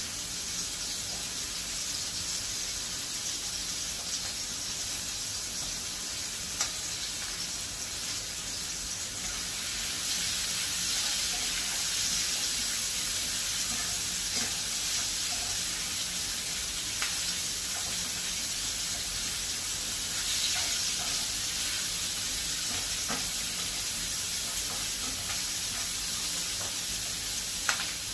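Vegetables frying in a pan, a steady sizzle, with a few light clicks of a spatula against the pan.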